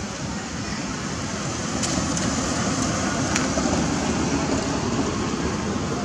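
Steady rushing outdoor background noise with a low rumble, swelling a little after about a second, with a couple of faint clicks.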